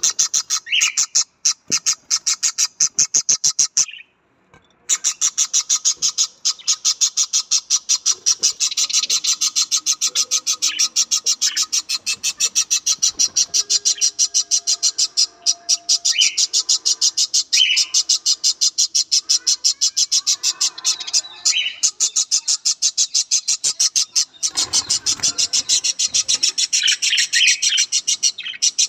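Budgerigars chirping in a fast, steady run of short high chirps, several a second, with a few brief whistles mixed in and a short pause about four seconds in.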